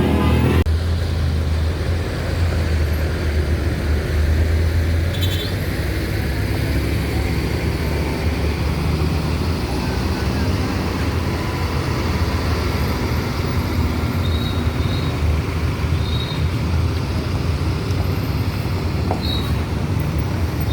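A bus's multi-tone telolet horn stops about half a second in. It leaves a bus engine idling with a steady low rumble amid road traffic, with a few faint short high beeps late on.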